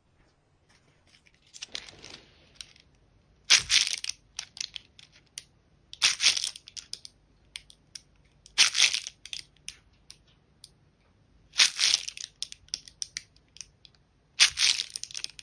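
Short bursts of crisp crunching, five loud ones about every two and a half seconds after a fainter one, with scattered small clicks in between.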